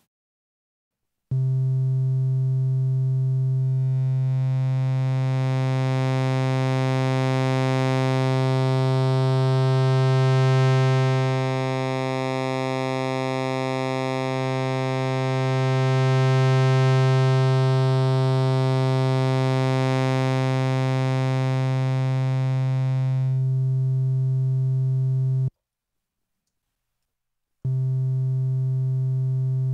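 Omnisphere 2.5 software synthesizer playing its Moog Little Phatty profile on a single oscillator: one low note is held for about 24 seconds while the oscillator's waveform shape is swept, so the tone changes slowly in brightness and swells twice. After a short gap a second held note begins near the end, duller, with the low-pass filter on.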